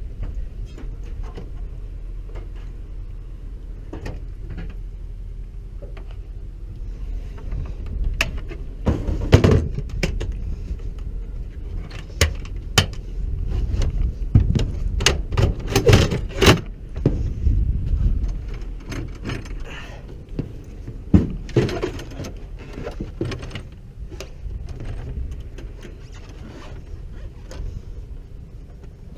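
Repeated metallic clinks and clatter over a steady low hum, busiest in the middle stretch, with a few louder knocks.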